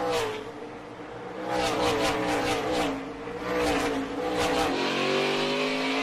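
NASCAR Cup Series stock car V8 engines running at racing speed, the engine note falling and rising with the throttle and climbing steadily near the end as the car accelerates.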